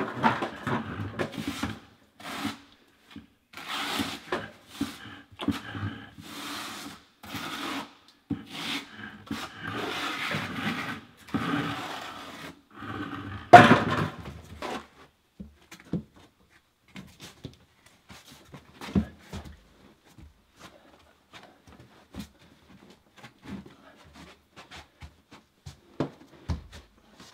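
Trowel scraping modified thin-set onto the bottom of a shower curb in irregular strokes, with one loud sharp knock about halfway through. After the knock there are only scattered light taps and rubs as the curb is pressed into place.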